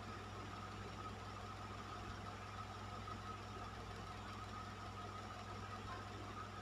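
Electric fan running steadily: a constant low hum with a thin steady tone above it and an even rush of air.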